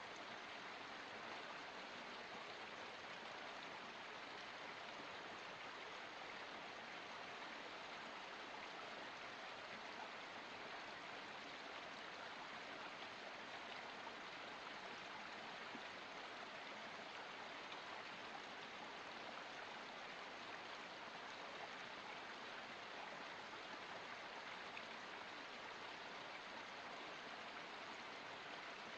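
Water of a small forest spring running steadily, a faint, even rush with no breaks or changes.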